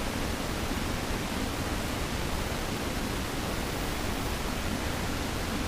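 Steady, even hiss with no distinct sounds in it: the background noise of a night-time outdoor recording.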